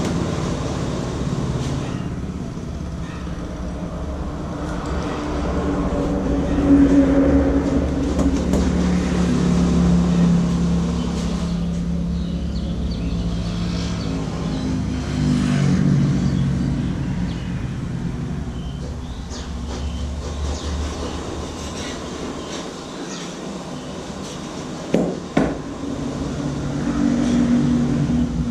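Steady rumble of motor traffic, with engine notes rising and falling as vehicles pass. Near the end come two brief sharp knocks.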